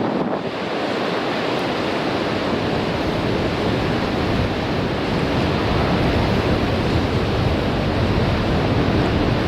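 Sea surf breaking and washing over rocks in a strong wind, a continuous dense rush that swells slightly in loudness, with wind buffeting the microphone.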